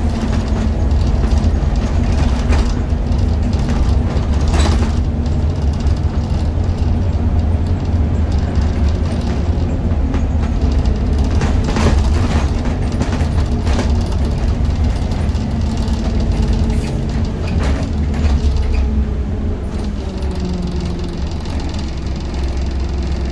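Scania Omnicity double-decker bus with a five-cylinder Scania DC09 9-litre diesel and ZF Ecomat automatic gearbox, heard from inside the passenger saloon while under way: a steady low engine drone with a few sharp interior rattles and knocks. Near the end the engine note settles and drops a little as the bus eases off.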